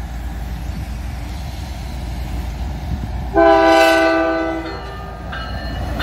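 CN diesel freight locomotive's multi-chime air horn sounding a long blast about three seconds in, then a shorter blast near the end, over the low rumble of the approaching train.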